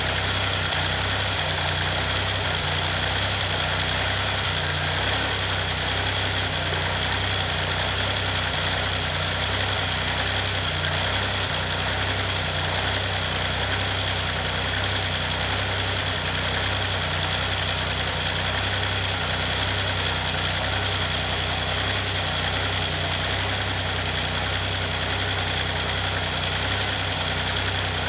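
Maserati engine idling steadily on its newly replaced timing belt, with a steady rushing hiss and a thin high whine over it from the electric radiator fan running.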